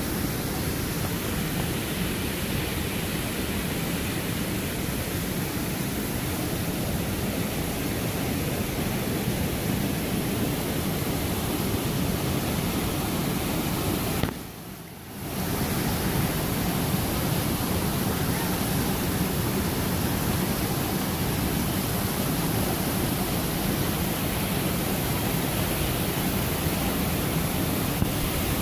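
Small forest waterfall cascading over rocks: a steady rush of water that drops away for a moment about halfway through.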